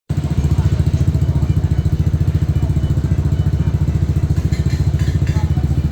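A small engine running steadily with an even low pulse, with a little faint clatter about four and a half to five seconds in.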